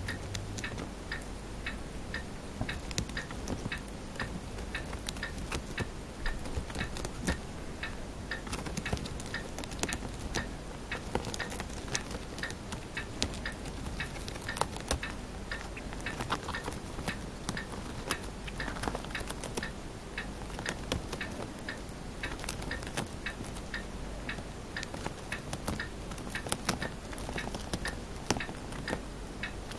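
Chinese dwarf hamster chewing a fresh green leaf: rapid, irregular tiny crunching clicks from its teeth biting through the leaf.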